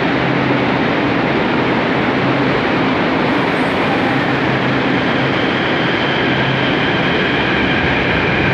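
São Paulo Metro Line 5 P-fleet train at the platform, making a steady rushing noise with a low hum that weakens about halfway through.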